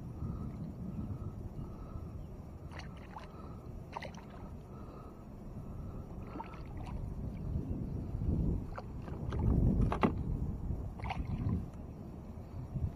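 Water sloshing and splashing as a hooked channel catfish thrashes at the surface beside a kayak, loudest around nine to ten seconds in, with scattered sharp clicks.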